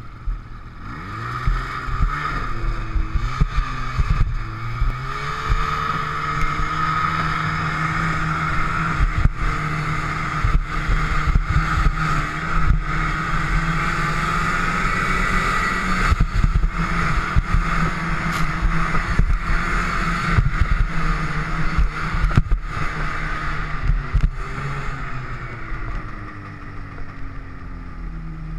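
Snowmobile engine under way, heard from the rider's seat: it revs up and down a few times at first, then runs steadily at speed, with occasional bumps and wind buffeting. Near the end the engine note falls and quiets as the sled slows.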